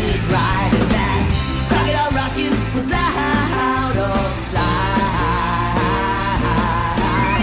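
Rock-and-roll music with a sung vocal over a steady beat.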